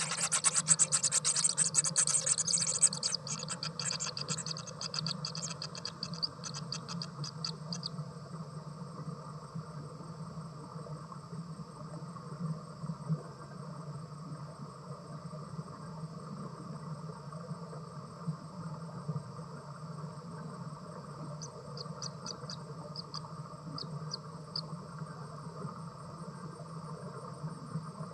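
Insects calling: a fast, high ticking trill that fades away over the first several seconds, and a short run of ticks later on, over a steady background drone.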